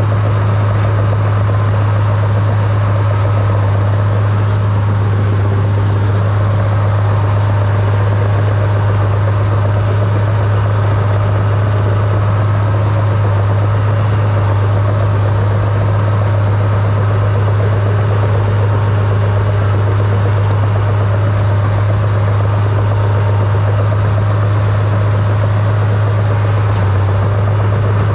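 Crawler bulldozer's engine running at a steady, unchanging pitch with a strong low hum while the blade pushes snow.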